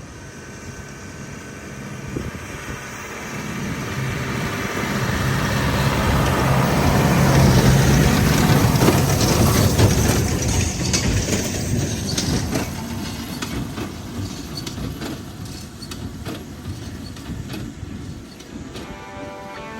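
Tractor engine running, its sound swelling to a peak about halfway through and then fading again.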